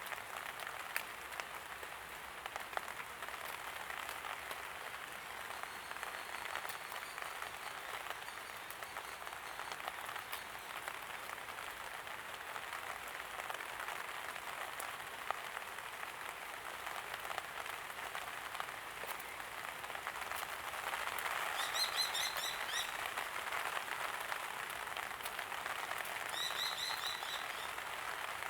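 Steady light rain pattering with a fine crackle of drops. Twice, about two-thirds of the way through and again near the end, a small bird gives a short run of rapid high chirps.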